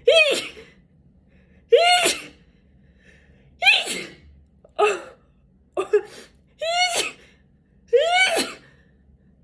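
A person sneezing in a rapid fit: about seven loud sneezes roughly a second apart, each a short pitched cry that rises and then falls.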